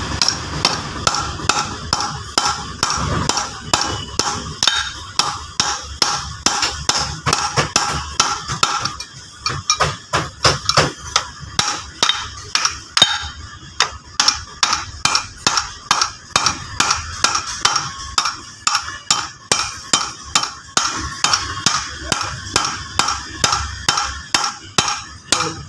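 Small hammer tapping in a steady rhythm on the top of an old Maruti Swift front shock absorber strut, about two to three sharp metal strikes a second, while the piston rod is held upright.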